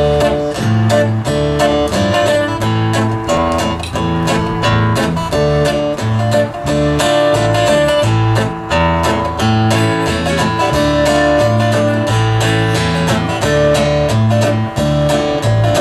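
Live instrumental intro of a country song: acoustic guitar strummed steadily while an electric bass plays held low notes that change every second or so. No vocals.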